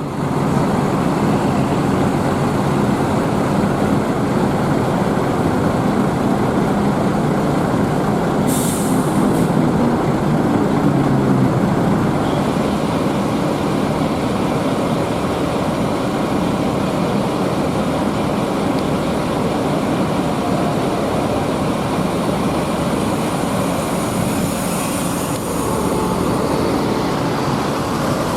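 Large diesel bus engine running close by as buses move through the terminal, with a short air-brake hiss about eight and a half seconds in.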